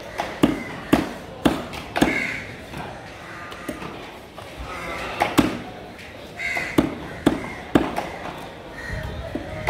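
A knife chopping fish fillet into pieces on a wooden chopping block: sharp chops, four in quick succession about half a second apart, then more near the middle and one near the end.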